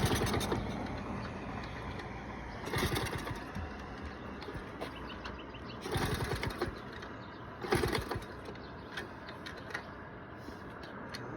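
Small four-stroke Honda Z50 minibike engine running, with short surges in revs about three seconds apart. It runs rough, which the owners put down to the timing, loose valves or the carb.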